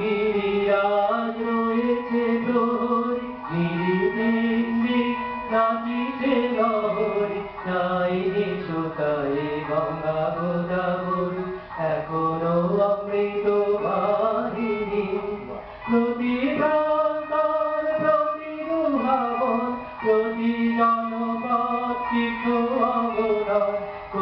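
A man singing a melody into a microphone, holding notes and sliding between them.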